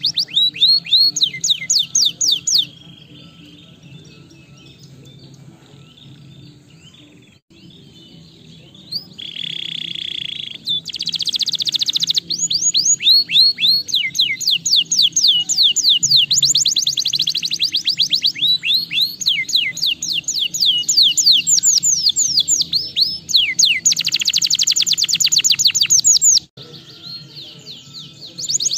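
Domestic canary song: long, rapid trills of repeated falling whistled notes. The trills stop for a few seconds early on, resume after a short harsh buzzy note, and break off shortly before the end.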